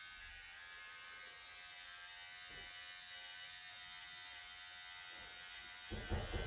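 Cordless electric hair trimmer running with a steady, even buzz while it is worked against the hair at the head, with a couple of soft handling knocks near the end.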